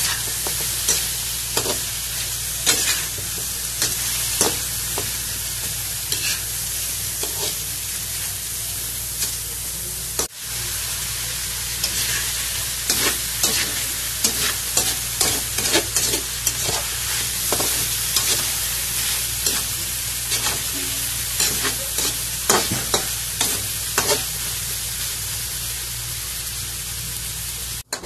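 Chicken pieces sizzling in hot oil in a metal wok, stirred with a metal spatula that scrapes and clinks against the pan again and again. The clinks come more often in the second half.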